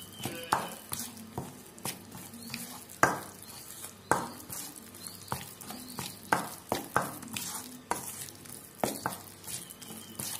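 Thick cake batter of flour, sugar, eggs and oil being stirred by hand in a stainless steel bowl: irregular scraping with sharp knocks against the steel every second or so.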